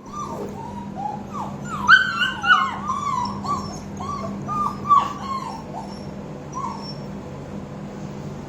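Australian Shepherd whining and yipping in a rapid string of short, high, gliding cries, loudest about two and five seconds in and dying away near the end. A steady low hum runs underneath.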